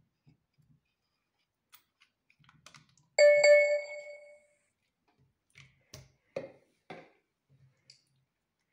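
Blue slime being worked out of a clear plastic tub and handled on a table. About three seconds in there is a short ringing ping that dies away over about a second. A few small clicks come before it, and four or five short clicks and slaps follow later.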